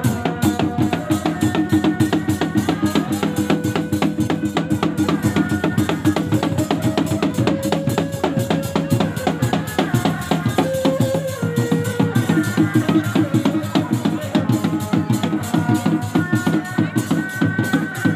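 Reak music: dog-dog drums beaten in a fast, dense, unbroken rhythm, with a melody of held notes above them.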